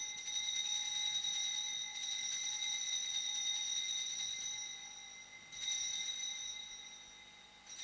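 Altar bell struck at the elevation of the consecrated host: a clear, single-pitched ring that carries on and fades slowly. It is struck again about two seconds in, again about three and a half seconds later, and once more at the very end.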